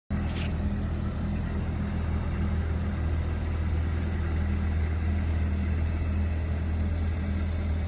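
An engine running steadily at a constant speed: a low, even hum with no revving.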